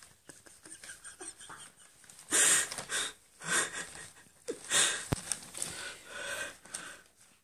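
Paper bag rustling and crinkling in irregular bursts as a cat moves about with its head inside it; the loudest bursts come about two and a half and five seconds in.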